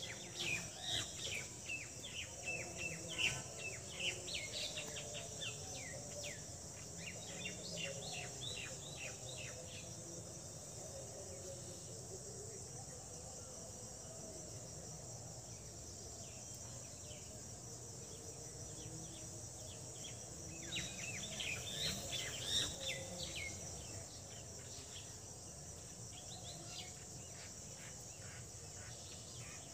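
Steady high-pitched insect chirring, like crickets, with quick bursts of bird chirps through the first third and again about two-thirds of the way in.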